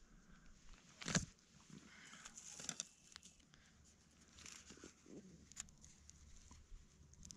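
Faint rustling and crinkling of dry tinder being handled around a char cloth ember, with a sharp knock about a second in.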